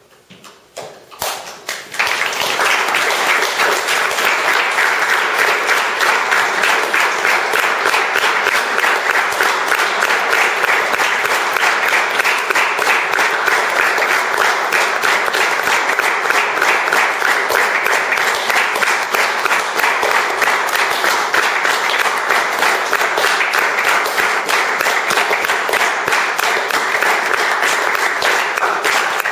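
A small theatre audience applauding: a few scattered claps at first, swelling about two seconds in to steady applause that holds.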